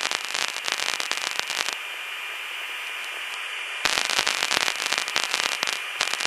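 Cockpit radio and intercom static: harsh crackling comes in two long stretches, separated by a steady hiss in the middle, with more crackle near the end.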